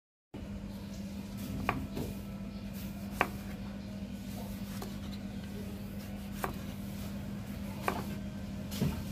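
A knife slicing through a tomato onto a wooden chopping board: a few sharp knocks, spaced a second or more apart, each time the blade meets the board. A steady low hum runs underneath.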